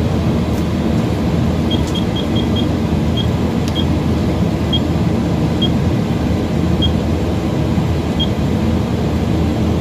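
Komatsu PC2000-8 excavator's engine running steadily, heard from inside the cab, with short high electronic beeps from the monitor panel keys as they are pressed: a quick run of five about two seconds in, then single beeps every second or so.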